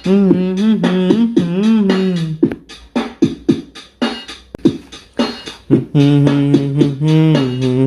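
Background music: a gliding melodic line over a steady percussive beat. For a few seconds in the middle only the beat plays, then a lower, more sustained melody comes back in.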